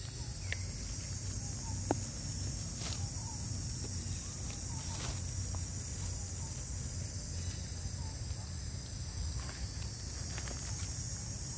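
Steady high-pitched drone of insects over a low steady rumble, with scattered faint rustles and ticks as long-tailed macaques pick through dry leaf litter.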